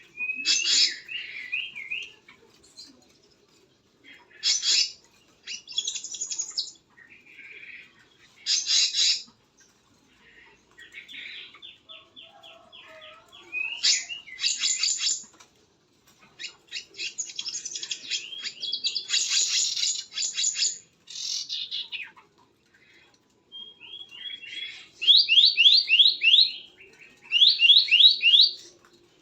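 Birds calling in bursts of high chirps and rapid trills. Near the end come several quick runs of fast, repeated rising notes.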